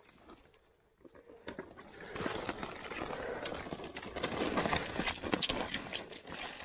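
Dry scrub and branches rustling, with twigs cracking and snapping, as a person pushes through thick bush on foot, along with footsteps on sticks and leaf litter. It is quiet for the first second or so, then dense rustling and cracking with many sharp snaps.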